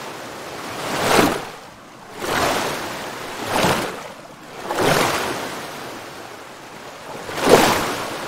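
Ocean surf: waves washing in and drawing back in repeated swells of noise, five surges in about eight seconds, the last the loudest.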